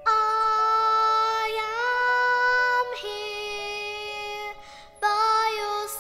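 Music: a song sung by a high voice in long held notes that step up in pitch. A quieter stretch comes in the middle, and a new phrase starts about five seconds in.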